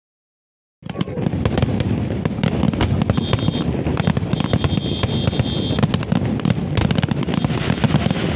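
Large aerial fireworks display: a dense, continuous barrage of shell bursts, bangs and crackle, cutting in suddenly about a second in.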